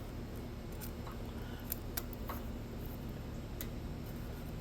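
A few faint, light metallic clicks from hand wrenches on the rocker-arm adjuster and locknut during valve-lash adjustment, over a steady low hum.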